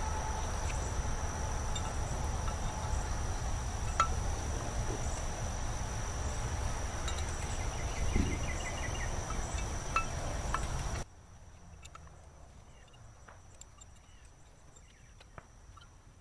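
Outdoor yard ambience: a steady high-pitched insect drone, with a low rumbling noise that cuts off abruptly about eleven seconds in. A few light metallic clinks with a short ring are heard in the first part.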